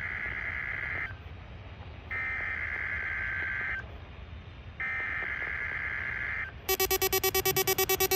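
NOAA Weather Radio SAME digital header sent three times: three raspy, warbling data bursts near 2 kHz, each about a second and a half long with a short gap between them. This marks the start of a required weekly test. Near the end, a louder, rapidly pulsing electronic sound with many tones starts.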